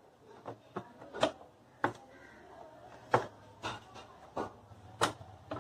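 Luggage carrier support bracket being fitted by hand onto a motorcycle's rear frame: about nine irregular clicks and knocks as it is set against the frame mounting points, the loudest about three seconds in.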